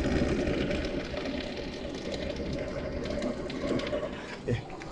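Handheld gas torch burning with a steady hiss as it lights newspaper and kindling in a wood-burning fireplace's firebox, tapering off near the end.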